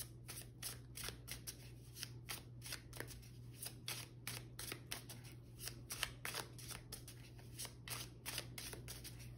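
Tarot deck being shuffled by hand: a quiet, irregular patter of card flicks, several a second.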